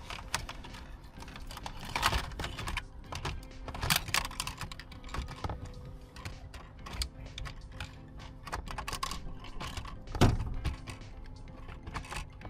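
Plastic centre-console trim being handled and clipped back into place: a scattered run of light clicks and knocks, with one heavier thump about ten seconds in.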